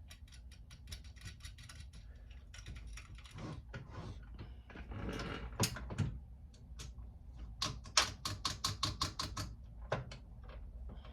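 Hand ratchet clicking in quick runs as bolts are driven back into the heater fan motor's housing, with some handling noise in between.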